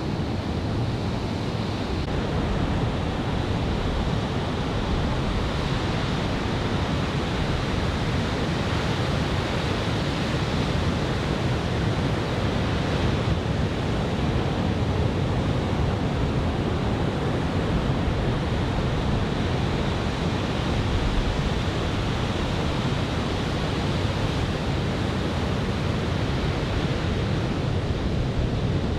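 Steady noise of ocean surf breaking on the shore, mixed with wind on the microphone from an onshore breeze.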